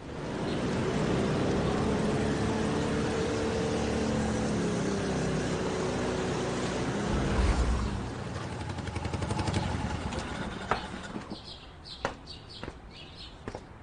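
Sidecar motorcycle engines pulling up and running steadily, then dying away after about eight seconds. Near the end come a few sharp footsteps on pavement.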